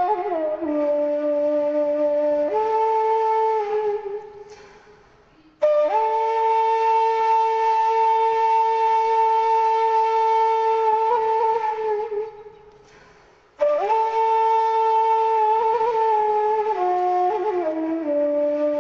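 Background music on a flute-like wind instrument: long held notes, each fading away about four and twelve seconds in before a new note starts abruptly.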